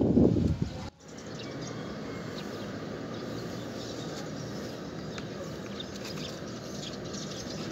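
The rumbling tail of a homemade alcohol-fuelled boga gun's blast, cut off abruptly about a second in. Then a steady outdoor background with faint bird chirps.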